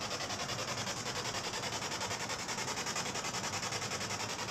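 Spirit box radio sweeping through stations: a steady hiss of static chopped in a fast, even rhythm several times a second, with no voice coming through.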